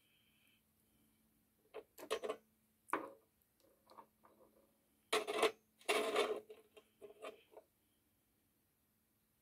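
Gel polish bottles and caps handled on a tabletop: a series of small knocks and clatters in several bursts, loudest about five to six and a half seconds in.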